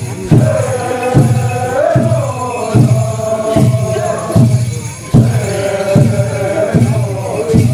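Deer dance song: voices chanting together over a steady drum beat, about one stroke every 0.8 seconds.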